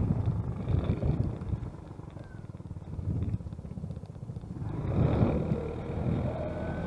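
Wind buffeting the microphone of a moving camera, a dense low rumble that eases for a couple of seconds around the middle and builds again near the end.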